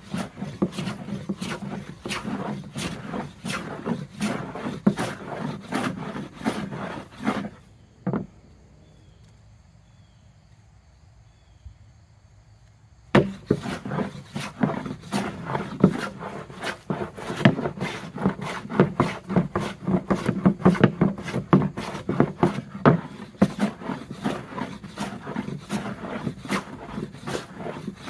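No. 5 jack bench plane taking quick, repeated strokes across pine, the blade set fine to clean up tear-out from rough grain. The strokes stop after about seven seconds, with one knock, and resume about five seconds later.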